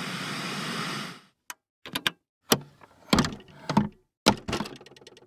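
A noisy hiss fades out about a second in, followed by a series of about seven separate mechanical clicks and clunks and a short fading rattle of fine ticks near the end, like a piece of equipment's mechanism being worked.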